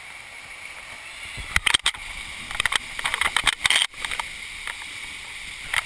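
Water slide ride heard through a GoPro in its housing. A steady hiss gives way, about a second and a half in, to rushing water with a rapid run of sharp knocks and bumps against the slide.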